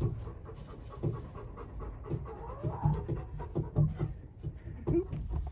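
A dog panting in short, irregular breaths, over a low rumble of wind on the microphone.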